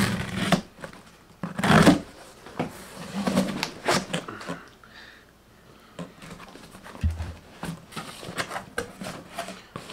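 A knife slitting packing tape on a cardboard shipping box, the tape tearing loudest just under two seconds in, then the cardboard flaps opening and a paper packing slip being handled, with scattered rustles and scrapes.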